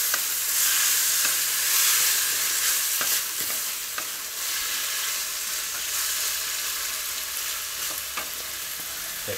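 A pork and vegetable stir-fry sizzling in a nonstick pan while a wooden spatula stirs and tosses it. A few light knocks of the spatula against the pan come through the steady sizzle.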